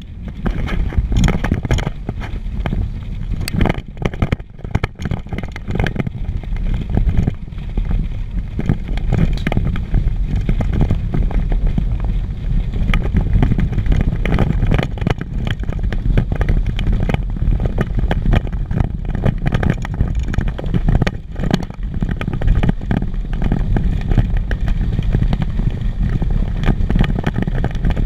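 Truck driving along a rough dirt road, heard from its open cargo bed: a steady low engine-and-road rumble with constant rattling and jolts from the bumps.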